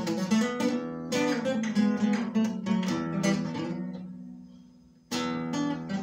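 Acoustic guitar strummed, with the chords ringing. About three and a half seconds in, the strumming stops and the last chord dies away almost to silence. Strumming starts again about five seconds in.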